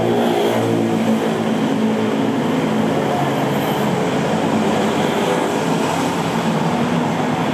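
A vehicle running: a steady, loud rushing rumble with a low humming drone, strongest in the first couple of seconds.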